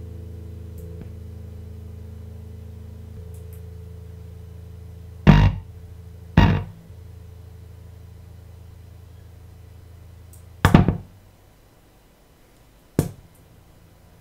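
Electric guitar through a tube amp and digital delay, a held note ringing out and fading away over the first few seconds. Then four short, loud sharp bursts through the amp, two close together about five and six seconds in, another near eleven seconds, a smaller one near the end.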